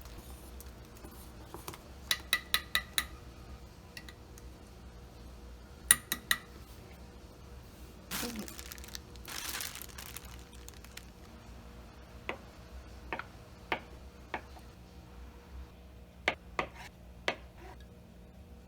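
Utensils clinking against dishes: a quick run of five or six ringing clinks, a few more a few seconds later, then a stretch of scraping and scattered light taps.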